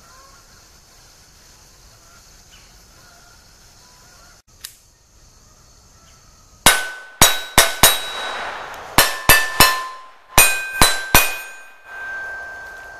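Smith & Wesson M&P 22 Compact .22 LR pistol firing ten shots in three quick strings (four, three, three), heard from beside the steel targets, with the steel plates ringing after the hits. Faint steady insect chirring before the shooting starts about halfway in.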